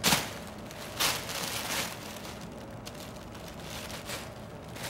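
Thin plastic carrier bag crinkling and rustling as a Bengal kitten burrows and paws inside it. There is a loud burst at the start, another lasting most of a second from about a second in, then a few softer rustles.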